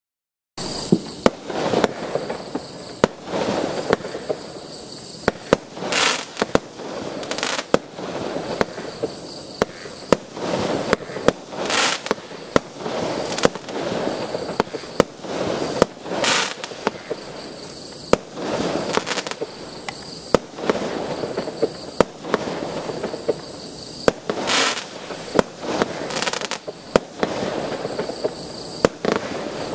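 Astra Swamp Beast multi-shot firework cake firing: a steady run of sharp bangs and cracks, about one to two a second, with crackling between shots. It starts about half a second in.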